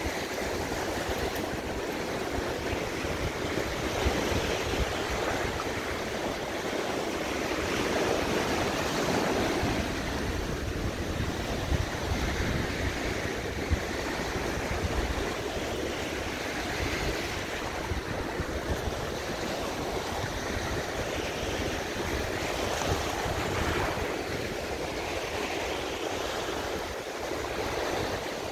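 Gulf of Mexico surf washing onto the beach: a steady rushing that swells and eases every few seconds.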